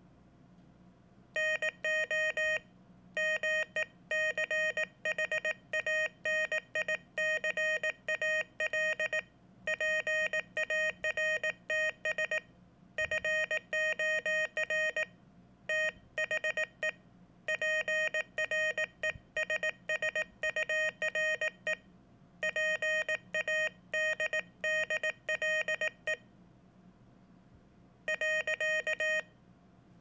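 Morse code sidetone from a Morserino keyer: a single steady mid-pitched beep keyed rapidly into dits and dahs. It comes in groups of a second or two with short pauses between, as words are sent by hand on a silent touch-sensor pressure paddle.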